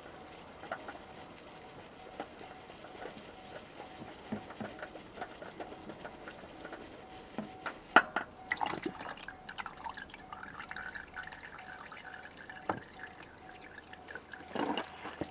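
Engine oil pouring and dripping during an oil change, with scattered clicks and clinks and one sharp click about halfway through.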